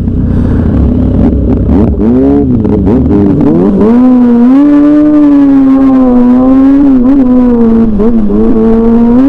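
Sport motorcycle engine accelerating hard, heard from the rider's seat: the revs climb and drop in quick sweeps through the gear changes about two to three and a half seconds in, then hold high and nearly steady with a slight waver.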